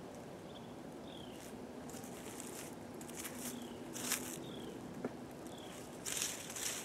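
Footsteps shuffling and crunching through dry fallen leaves, loudest about four seconds in and near the end, over a steady low hum of honeybees at the hive. A bird chirps several times, each chirp a short falling note.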